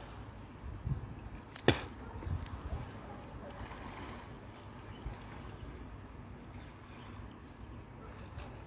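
River water flowing, heard as a steady low rushing noise with a few soft thumps, and one sharp click about two seconds in.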